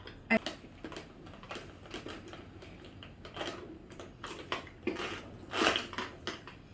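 Scattered light clicks and short rustles of small objects and packaging being handled, with one sharp click near the start and a longer rustle about five and a half seconds in.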